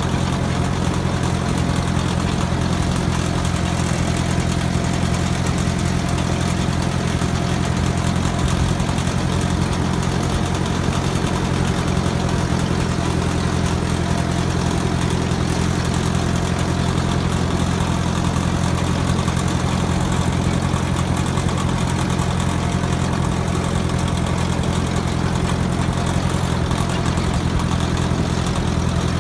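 Small old tractor's engine running steadily at an even speed as it drives along, with no change in pitch.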